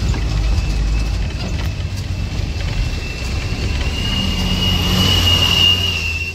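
Bus engine running with a steady low rumble, heard from inside the bus, over a thin high whine that rises slightly in pitch about four seconds in, with a few light rattles.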